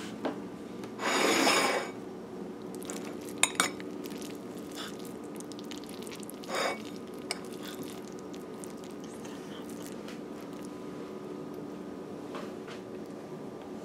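A spoon scraping and clinking against ceramic dishes while food is served onto a plate: a short scrape about a second in, two sharp clinks a couple of seconds later, then another brief scrape and a single clink, over a steady hum.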